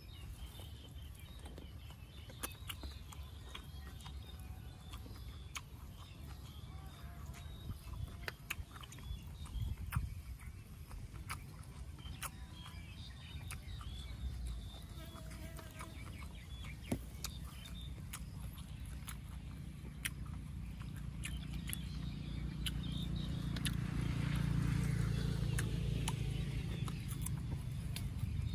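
A person chewing cooked pig stomach and liver close to the microphone, with frequent wet clicks and smacks of the mouth, and the rubbery stomach being pulled apart by hand. A low rumble swells near the end.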